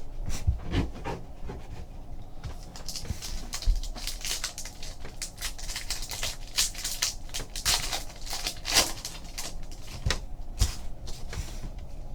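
Trading cards handled by hand: a quick run of card edges sliding, flicking and rustling against each other as they are flipped through, busiest from about three seconds in until near the end.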